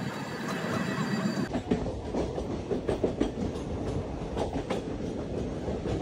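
Train running close past, its steel wheels clattering over the rail joints with a low rumble underneath. The sound changes abruptly about a second and a half in, after which the irregular wheel clicks stand out.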